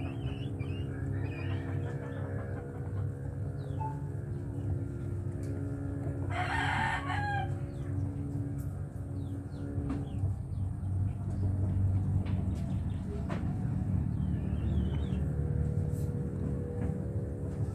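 A rooster crows once, about six seconds in, over a steady low hum. Small birds chirp faintly now and then.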